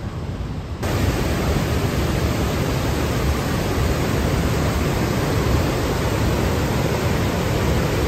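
Steady rushing of whitewater at Athabasca Falls, river water pouring over rock ledges; it starts suddenly about a second in, after a quieter stretch.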